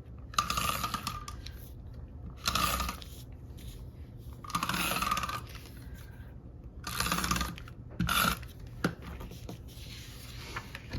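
Tape being pulled and run along paper planner pages to join them, in about five separate rasping strokes, each half a second to a second long, with a few small clicks between.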